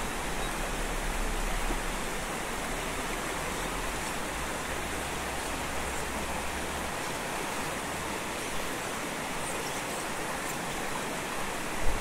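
Mountain stream water rushing steadily over rocks, with a short thump just before the end.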